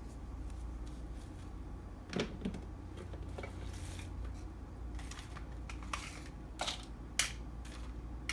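Scattered light clicks and knocks of groceries and their packaging being handled and set down on refrigerator shelves, over a steady low hum.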